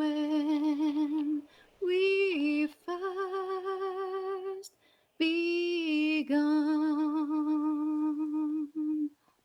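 A woman's voice singing a hymn unaccompanied, drawing out the final line in slow, long-held notes with vibrato, in four phrases with short breaths between, the last note ending shortly before the end.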